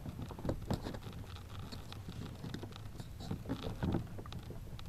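Scattered light clicks and scrapes of a plastic door lock switch being worked into its opening in a car's door panel.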